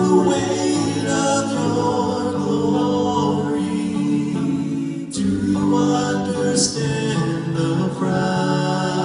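Male a cappella vocal group singing in close harmony, with tenor voices over a low bass line, holding long chords with no instruments. About five seconds in the voices briefly drop off and a new phrase begins.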